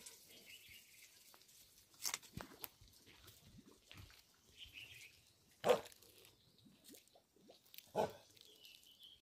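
A Tibetan Mastiff giving a few single short, deep barks with pauses between, the loudest about two-thirds of the way in and another near the end.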